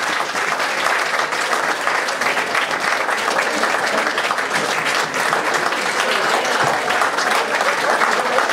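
Audience applauding, a dense steady clapping for the cast's curtain call.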